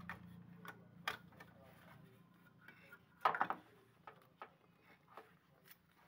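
Scattered small plastic-and-metal clicks and knocks as the starting relay is worked loose and pulled off a freezer compressor's terminals, with a louder rattling cluster about three seconds in.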